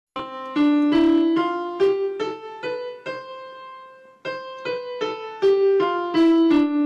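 Piano playing a musical scale one note at a time. The notes step up in pitch to a held top note about three seconds in, then step back down, from the lowest note to the highest and back.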